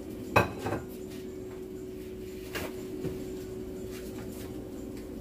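A few light knocks and clicks of a plate and utensils being handled, the loudest about half a second in, over a steady hum.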